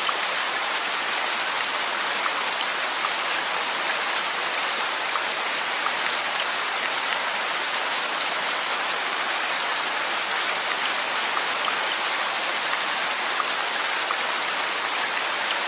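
Steady rainfall with many small drop impacts pattering on surfaces, an even hiss without letup.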